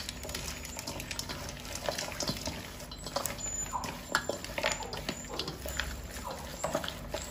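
A bare hand mixing chopped pork ribs with minced garlic, seasonings and a little water in a stainless steel bowl: wet squelching with many irregular small clicks and taps against the metal.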